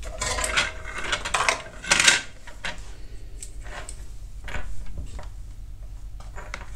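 Small metal tools and parts clinking and clattering on a hard workbench as they are handled, picked up and set down: a busy rattle of clicks for about the first two seconds, then scattered single clicks, over a steady low hum.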